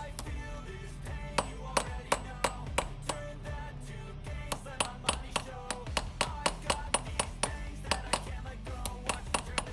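Small steel hammer tapping repeatedly on the head of a pivot pin of a hand hole punch resting on a steel block: sharp metallic taps about three a second, with a short pause a little under halfway. Background music plays underneath.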